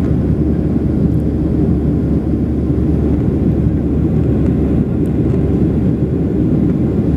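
Steady low cabin noise of a jet airliner, engines and rushing air heard from inside the passenger cabin as it climbs after takeoff.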